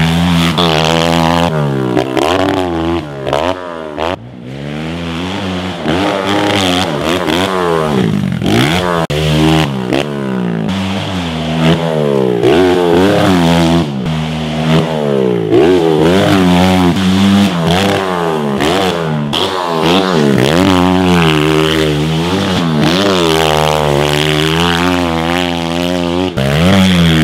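Kawasaki KLX140 dirt bike's four-stroke single-cylinder engine ridden wide open, its pitch rising and falling over and over as the rider revs through the gears and backs off for turns and jumps. The engine drops briefly quieter about four seconds in.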